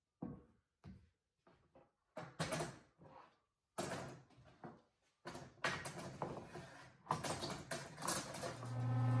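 Metal bar clamps and walnut boards handled on a wooden workbench: a run of knocks and clattering, sparse at first and busier from about two seconds in as the clamps are gathered up. A steady hum comes in near the end.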